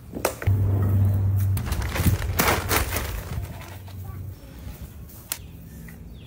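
Hand trowel digging and scraping potting soil in a tall glazed ceramic planter: a few sharp scrapes and knocks. A low steady hum is loudest in the first couple of seconds and fades out by about four seconds in.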